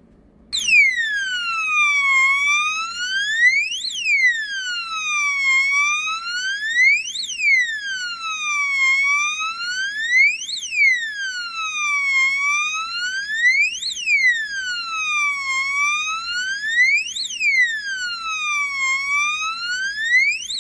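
AL-80 solar motion-sensor alarm sounding its electronic siren: a loud wail that rises and falls about once every three seconds, starting about half a second in. Its sensor has detected an approach, which sets the alarm off for about 20 seconds.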